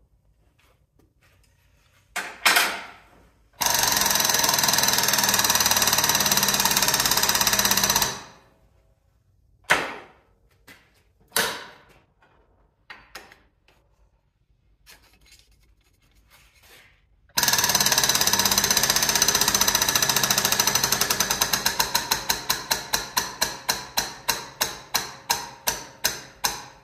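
Air-over-hydraulic pump running in two bursts, its air motor pumping rapidly. In the second run the strokes slow to separate pulses, about two or three a second near the end, as hydraulic pressure builds. A few short hisses come in between, with the fittings leaking pressure.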